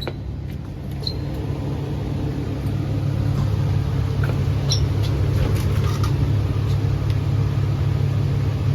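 Steady low rumble and hum of running air-conditioning equipment, growing louder over the first three seconds and then holding, with a few faint light clicks.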